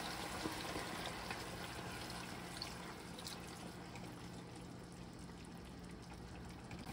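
Vinegar trickling from a small glass bowl into a pan of hot chicken adobo sauce, then the sauce bubbling quietly and slowly dying down.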